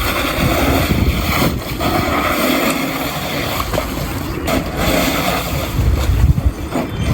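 Wind blowing and buffeting the microphone in uneven gusts, a loud low rumble over a steady rush.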